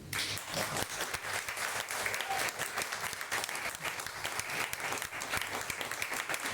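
Audience applauding, many hands clapping steadily after a reading.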